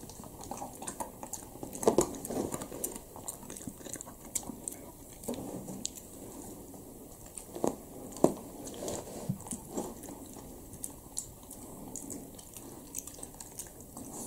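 Shiba Inu crunching and chewing dry kibble: irregular crunches and small clicks, with the sharpest crunches about two seconds in and around eight seconds in.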